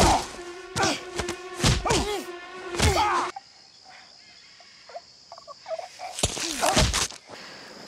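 Two people fighting at close quarters: grunts and strained cries with thuds of blows through the first three seconds, then a quieter stretch of faint breathing and movement, and one more loud strained grunt about six seconds in.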